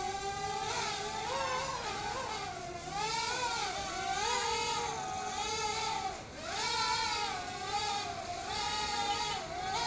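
WL Toys Q242G micro quadcopter's motors and propellers whining in flight, the pitch wavering up and down as the throttle changes.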